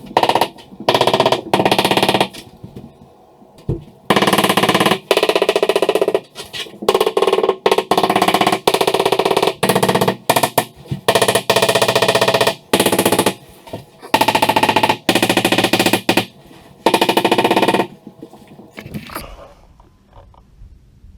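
Power drill with a mixing paddle churning setting-type joint compound (hot mud) in a plastic bucket, run in repeated bursts of a second or two with a rattling whine, stopping near the end.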